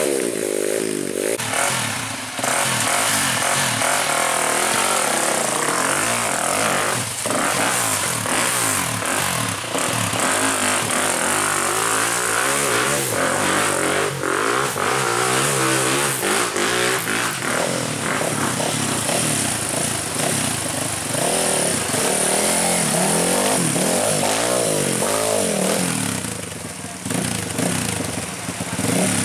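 Off-road trail motorcycle engines revving hard, several at once, their pitch rising and falling again and again; the engines ease off briefly near the end.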